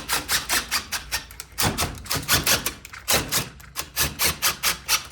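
A driver with a star (Torx T20) bit driving a silver self-tapping screw into the screen cassette's attachment hole, giving a rapid run of sharp clicks, about five or six a second, in bursts with short pauses.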